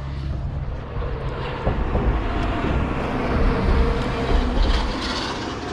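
Steady rumble of a boat underway on a fast, flooded river: motor and rushing water noise together, swelling a little in the middle.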